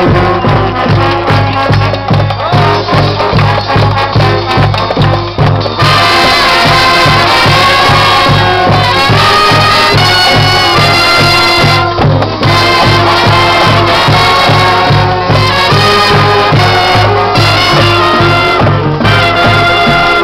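Upbeat brass music over a steady, pulsing bass beat. The horns come in louder about six seconds in.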